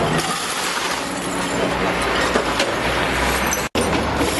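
Masses of glass beer bottles and broken glass clinking and scraping over the pavement as a wheel loader's bucket and workers' shovels and brooms clear them, over the steady hum of the loader's diesel engine. The sound breaks off for an instant near the end at a cut.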